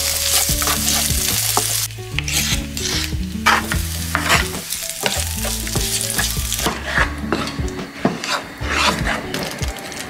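Food sizzling as it fries in a pan, with a utensil stirring and scraping through it. A steady sizzle for about the first two seconds gives way to a run of short, repeated scraping strokes.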